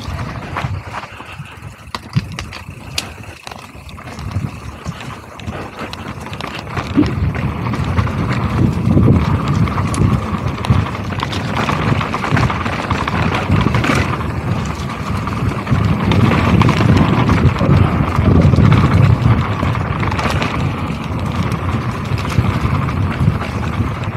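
Mountain bike riding fast down a dry dirt trail: continuous tyre and trail rumble with rattling and quick clicks and knocks from the bike and loose stones. It gets louder and rougher about seven seconds in.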